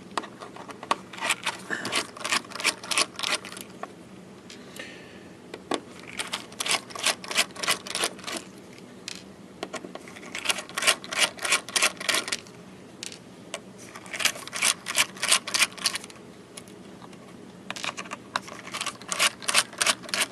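A screwdriver clicking rapidly in five bursts of a few seconds each as the screws are backed out of a hard drive's case.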